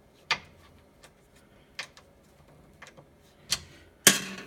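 A few small, sharp clicks spaced irregularly, from a tool working a bed-leveling screw under a 3D printer's heated bed. Near the end comes a loud rattling rustle of handling.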